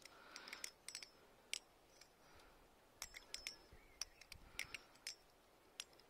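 A balisong (butterfly knife) being fanned in the palm: faint, irregular clicks as its handles and blade knock together while it spins.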